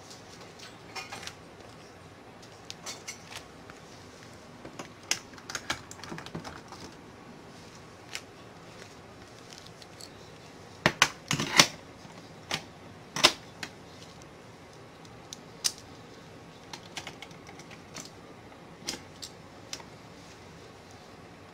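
Scattered sharp clicks and knocks at irregular intervals, with a loud cluster of them about eleven seconds in.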